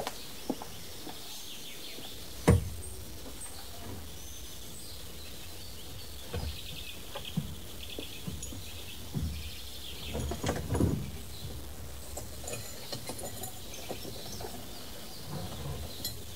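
Countryside roadside ambience of birds chirping and insects, with scattered knocks and clunks of things being moved about in a car boot. The loudest knock comes about two and a half seconds in, and a cluster of clunks comes around ten seconds in.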